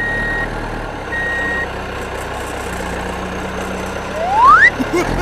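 Truck reversing alarm beeping twice, about a second apart, over a steady engine hum. Near the end a quick rising whistle sweeps up.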